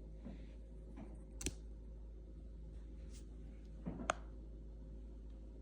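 A few light clicks and taps from handling small objects, with the sharpest about a second and a half in and a quick pair near four seconds, over a low steady hum.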